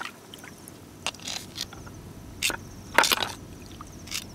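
A few sharp clicks and knocks, the loudest about three seconds in: sea snails being picked up with metal tongs and dropped into a plastic bucket.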